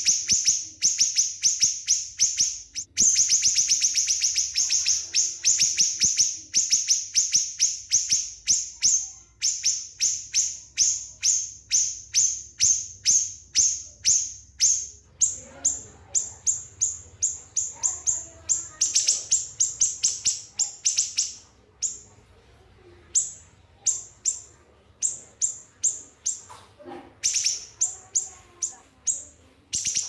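Small songbird singing: fast runs of high, sharp repeated notes, at first almost continuous, then spaced about four a second, and in the last third broken by pauses with only scattered notes.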